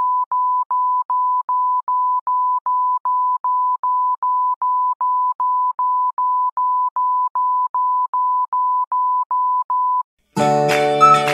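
Film-leader countdown sound effect: a single steady beep tone pulsed evenly about three times a second. Near the end the beeps stop and background music starts.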